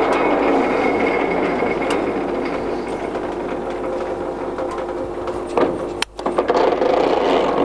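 Heymer & Pilz geared-head lathe running with its headstock gears whining steadily, easing off slowly. About six seconds in the sound cuts out briefly, followed by a run of clunks and rattles as the speed and clutch levers are worked.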